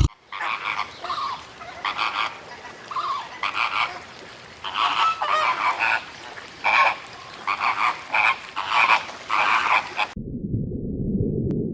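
A run of short, repeated animal calls, honking or croaking, coming in quick clusters. About ten seconds in they cut off abruptly, and a steady low rumble follows.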